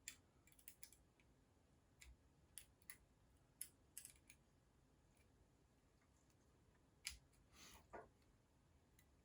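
Faint, scattered metallic clicks of a tiny open-ended spanner working the small nuts and bolts of a metal construction-set model.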